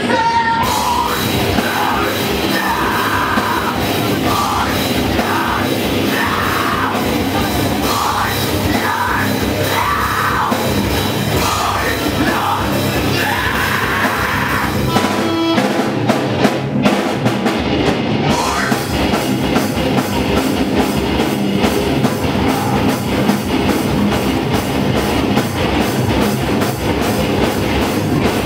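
Live heavy rock band playing loud, with electric guitar and drum kit, and vocals over the first half. Partway through the band drops to a thinner sound for a couple of seconds before the full band comes back in.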